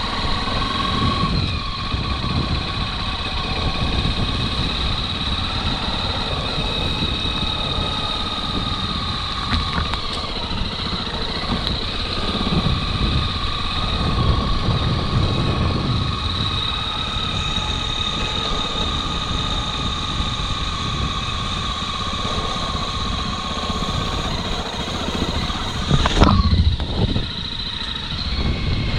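Motorcycle engine running steadily while under way, with a steady high tone over a low rumble. Near the end it briefly gets louder, with a sound that falls in pitch.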